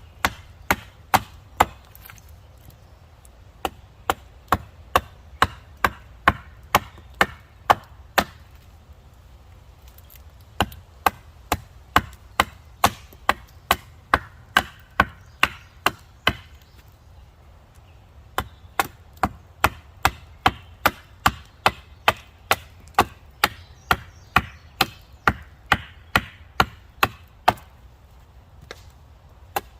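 Axe chopping a point onto the end of a wooden stake: sharp, even strokes about two a second, with two short pauses.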